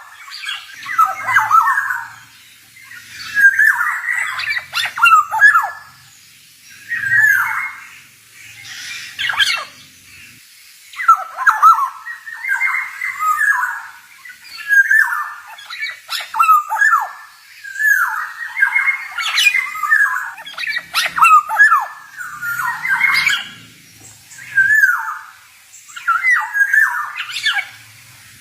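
Male black-naped oriole calling in short phrases of whistled and harsher notes, repeated every second or two with brief pauses between them.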